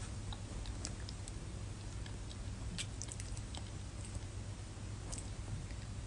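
Low steady hum and hiss of a quiet small room, with a few faint scattered clicks.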